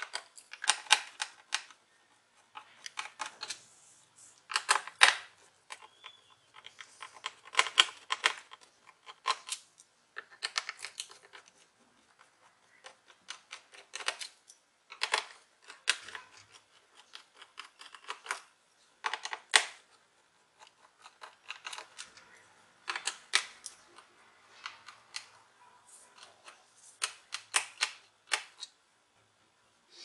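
Small screwdriver turning screws out of a Lenovo V110 laptop's plastic bottom cover: repeated short bursts of fast clicking and scraping, one every second or two.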